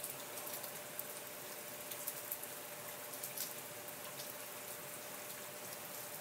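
Steady rain falling on wet pavement, with scattered sharp ticks of single drops close by.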